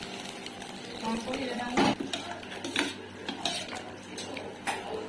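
Metal clanks and scrapes as a spoon scrapes the last of the seasoning from an iron kadai into an aluminium pot of kanji and knocks against the metal, about five sharp knocks spread across a few seconds.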